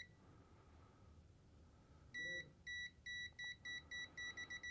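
AN8009 digital multimeter's non-contact voltage (NCV) beeper sounding as the meter is held against a live power cable. A short high beep, a pause of about two seconds, then the beeps return and quicken to several a second, the meter's signal that it senses voltage in the cable.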